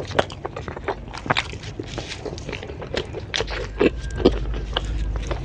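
Close-miked eating: a person biting and chewing crunchy food, an irregular string of crisp crunches and mouth sounds.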